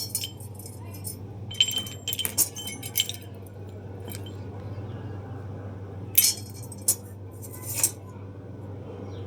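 Used metal motorcycle parts clinking and clattering as they are handled, in a cluster of sharp clinks about two seconds in and another about six seconds in, over a steady low hum.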